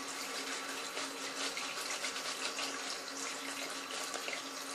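Tap running into a sink, a steady hiss of water.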